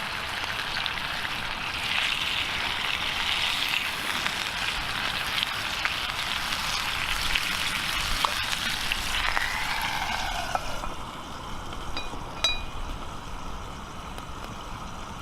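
Meat sizzling in a skillet over a campfire, a steady hiss with scattered crackles that dies down after about eleven seconds, with a few sharp pops.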